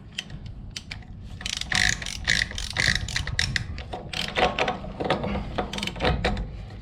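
Ratchet wrench clicking in short runs as the rear hub's axle nut is tightened down onto the wheel bearings.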